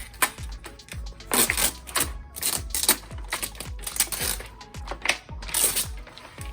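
Background music with a deep bass kick about twice a second, over which come several sharp clicks and clacks of shelf parts being handled and fitted together.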